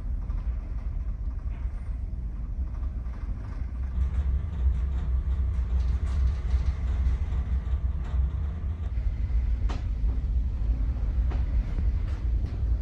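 Steady low rumble of a ferry's engines and hull vibration heard inside the passenger deck, with a few faint clicks near the end.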